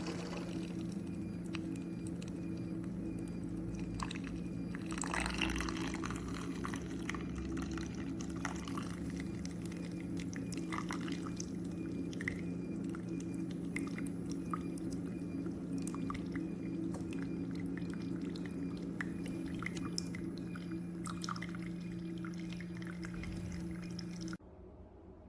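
Tastyle single-serve coffee maker brewing: its pump hums steadily while coffee drips and trickles into the cup, and the pump cuts off suddenly near the end as the brew finishes.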